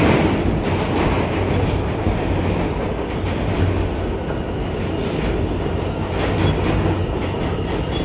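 R160A subway car running on the rails, heard from inside the car with the air conditioning off: a steady rumble of wheels and running gear with a low hum underneath, a little louder in the first second.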